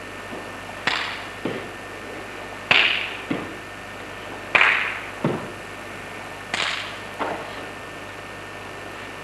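Karate gi snapping sharply with fast strikes during a kata. The snaps come in four pairs about two seconds apart, each a loud crack followed by a softer one.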